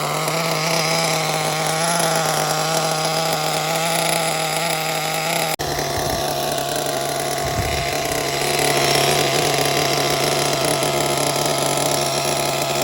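Drill spinning the Losi LST's nitro engine over through its starter, a steady whine with a brief break about five and a half seconds in. The engine does not fire: its carburetor idle screw is stuck.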